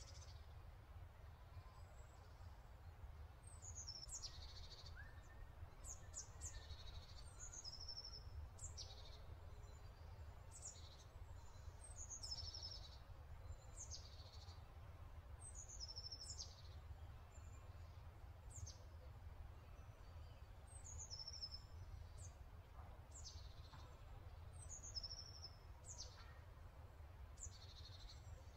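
Faint birds chirping: short, high, quickly falling notes repeating every second or two, over a low steady hum.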